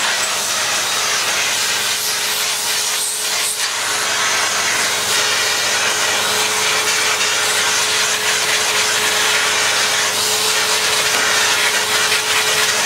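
A small power tool runs steadily with an abrasive scrubbing noise, cleaning the grime off the fob plate of a vintage Hoover Junior 119 vacuum cleaner.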